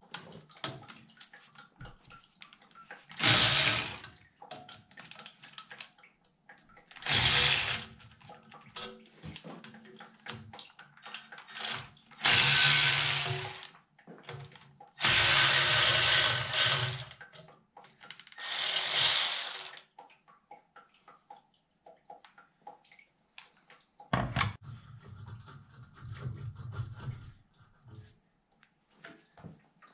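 Cordless power tool run in six short bursts, each one to two and a half seconds long, spinning off the exhaust bolts on a Yanmar 155D tractor engine, with clicks of handling between bursts.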